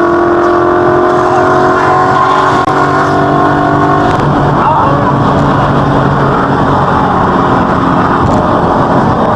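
Ford Mustang V8 engine and exhaust running under way, its pitch easing slowly downward for about four seconds, then settling into a rougher steady drone.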